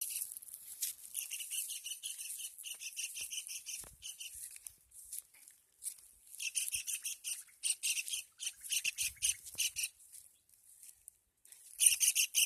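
Kingfisher calling: shrill notes repeated rapidly, several a second, in long rattling bouts with short pauses between them.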